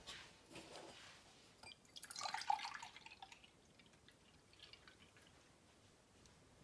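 Milk being poured out to measure it, a faint liquid pour strongest about two seconds in, followed by a few small drips.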